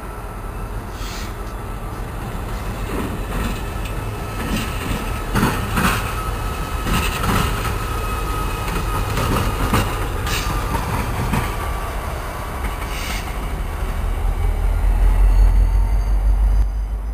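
EMD F40PH-2 diesel locomotives running light past at close range, their two-stroke EMD 645 diesels giving a steady low rumble with a thin steady whine. Wheels click sharply over rail joints from about five to eleven seconds in, and the low rumble swells near the end.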